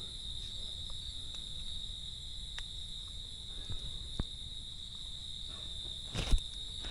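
Crickets trilling steadily at night, one continuous high-pitched note. A few faint clicks, and a brief rustle with a low thump about six seconds in.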